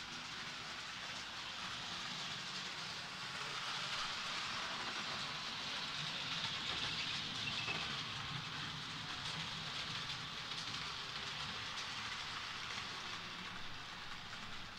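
H0-scale model train running on the layout's track: a steady whirring rush of the locomotive's motor and its wheels rolling on the rails, swelling a little mid-way.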